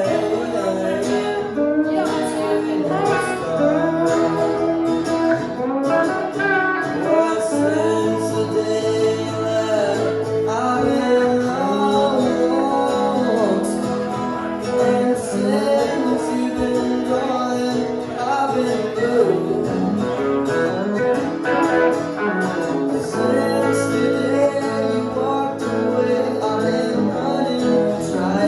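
Live country music from a duo: guitar playing with singing.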